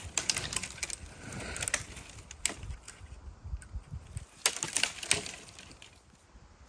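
Pine branches and twigs cracking and snapping, with rustling of needles and wood, in a string of irregular sharp cracks. The chainsaw motor is not running.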